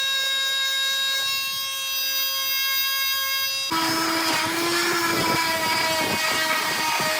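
Electric power tool running with a steady whine. About halfway through, the pitch drops and a rough grinding noise joins, as the tool is pressed onto the wood under load.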